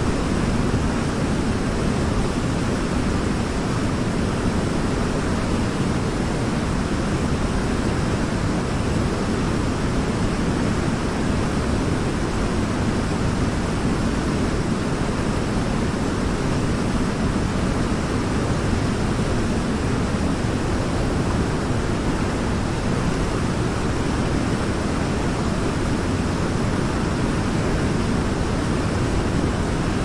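Large waterfall: a steady, unbroken rush of falling water, deepest and fullest in the low range.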